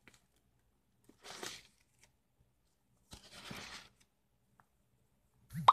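Pages of a ring-bound journal of coffee-dyed paper being turned: two soft paper swishes, about a second in and again about three seconds in. Right at the end comes a knock and a sharp metallic ding that rings on.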